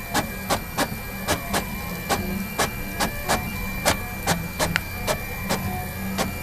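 A printer running, its mechanism making an even rhythm of sharp clicks, about four a second, over a steady high whine and a low hum.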